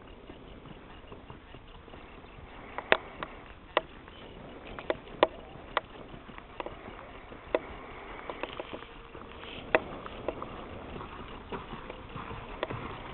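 A ridden horse's hooves striking hard, dry dirt: scattered sharp knocks at an irregular pace over a steady background hiss.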